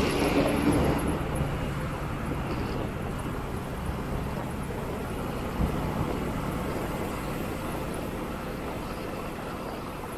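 Motorcycle engine running under the rider, with road and wind noise; the engine is loudest in the first second, then settles to a steady drone. A brief thump about five and a half seconds in.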